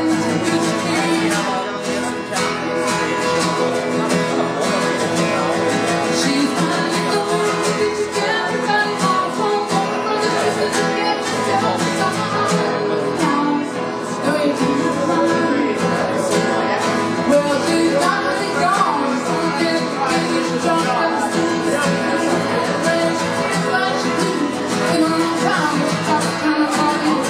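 An acoustic guitar strummed steadily, with a woman singing over it, played live through a microphone.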